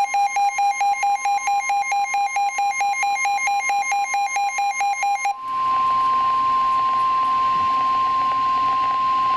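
Weather alert tones: a rapid pulsing beep, about five a second, sounds over a steady high tone. The beeping stops about five seconds in, leaving the steady tone with a radio hiss behind it. This steady tone is NOAA Weather Radio's warning alarm, which comes before a National Weather Service warning is read.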